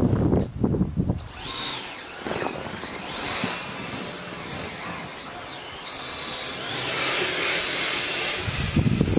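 Electric whine of an RC snowcat's two brushless 2838 2800KV motors, driven by ESCs, rising and falling in pitch as the throttle changes, over the noise of the tracks running.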